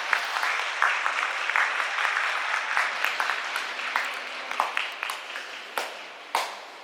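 Sumo arena audience applauding, the clapping thinning out and fading to a few scattered single claps near the end.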